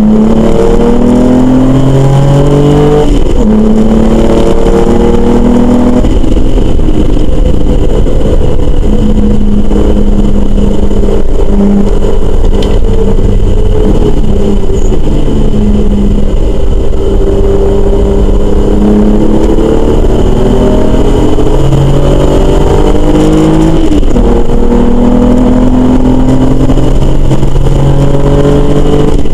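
BMW race car's engine heard loud from inside the cockpit. Its pitch climbs and then drops sharply about three and six seconds in and again near the end, and holds steadier in between, over a constant low road rumble.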